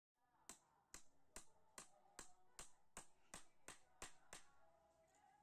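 About eleven sharp, evenly spaced knocks, roughly two and a half a second, stopping after about four seconds.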